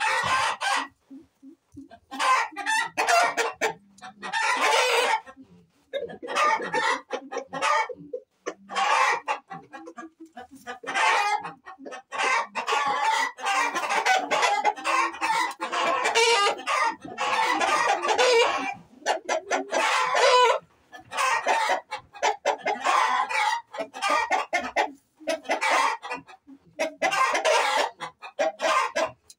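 Chickens clucking and roosters crowing, many calls in quick succession and overlapping, broken by short pauses.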